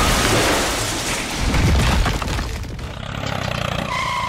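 A crash sound effect: a sudden loud crash and breaking noise that fades away over a few seconds, with a low rumble about a second and a half in.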